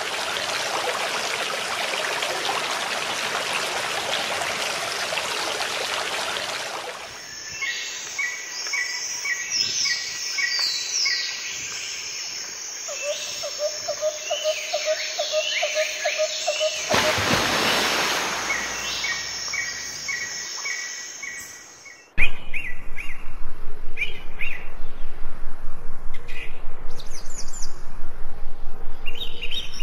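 Water rushing along a narrow stone-lined channel, then songbirds calling: rows of short repeated chirps, quick downward-sweeping notes and a trill, with another short rush of water in the middle. About two-thirds through, the sound changes to an even, fast pulsing over a low hum, with birds still chirping over it.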